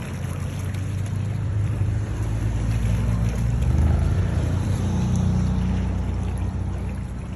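Wind buffeting the microphone: a loud, uneven low rumble that swells toward the middle and eases near the end.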